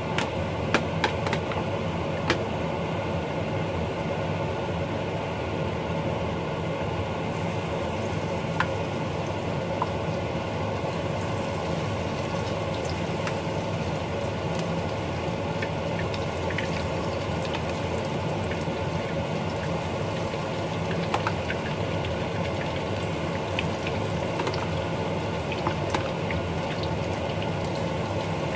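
A steady kitchen hum runs throughout, under scattered light clicks and taps of a spoon stirring fritter batter in a plastic tub.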